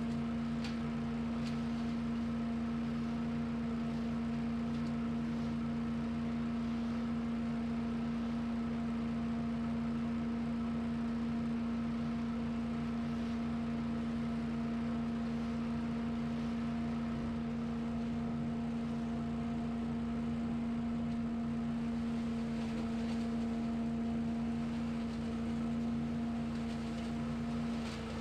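Small engine of lawn equipment running steadily at constant speed, a continuous even drone with no change in pitch.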